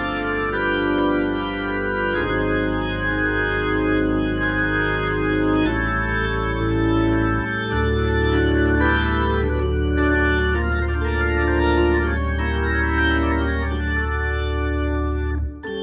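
Hammond B3 organ played through a Leslie 122 speaker: sustained chords over held bass-pedal notes, the bass note changing about halfway through. The sound drops out briefly near the end.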